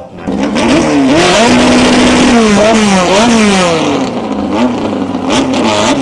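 VW Beetle drag car's rear-mounted, open-exhaust engine revving hard, its pitch climbing and dropping again and again.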